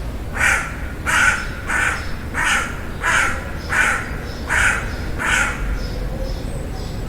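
Crow cawing in a steady series of eight loud caws, about one every 0.7 seconds, with fainter calls near the end, over a constant low background noise.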